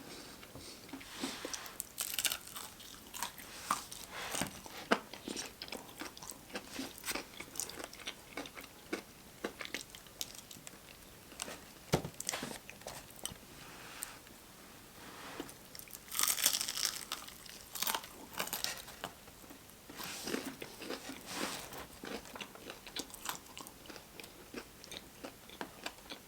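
Close-miked eating of Popeyes food: repeated bites and crunchy chewing with wet mouth clicks, with a denser burst of crunching about two-thirds of the way through.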